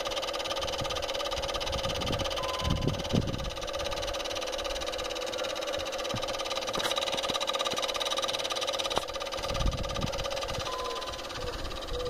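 Dometic RCB 42 P thermoelectric cooler running with a steady electrical hum from its fan and electronics. A short higher beep sounds twice, about eight seconds apart, which the owner takes for an out-of-spec alarm. Some low bumps are mixed in.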